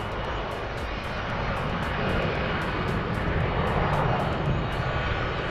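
Jet engine noise from a Delta Connection Bombardier CRJ-900's two rear-mounted turbofans as it rolls at speed down the runway, a steady roar that swells louder about two to four seconds in.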